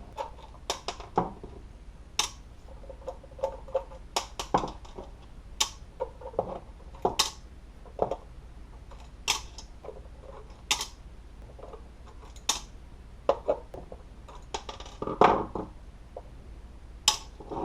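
Sharp clicks and small taps from handling the plastic case of a Spektrum DX6 radio transmitter while its back screws are taken out with a Phillips screwdriver and set in a small box, coming every second or two at uneven intervals.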